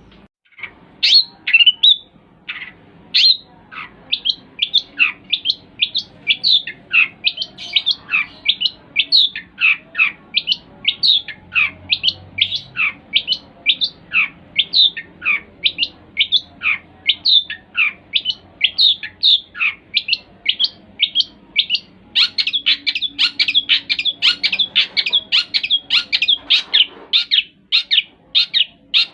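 Long-tailed shrike (cendet) singing a long run of short notes, each falling steeply in pitch, about two to three a second, coming faster and closer together from about 22 seconds in.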